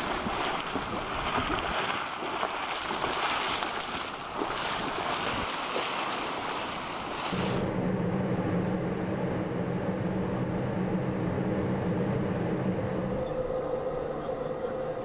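Hot spring water gushing from a pipe outlet and splashing into a steaming pool: a steady rushing hiss that cuts off abruptly about seven and a half seconds in. After it comes a steady low machine hum.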